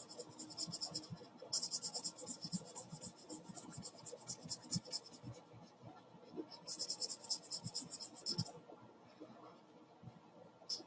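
Marker scribbling on a paper sketch pad in quick back-and-forth strokes, filling in a small dark patch. It comes in three spells of rapid strokes with short pauses between, starting again near the end.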